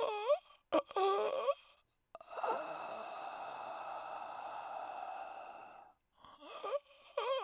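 A high-pitched voice making short, wavering whimpers, then one long drawn-out moan of about four seconds, then more whimpers near the end.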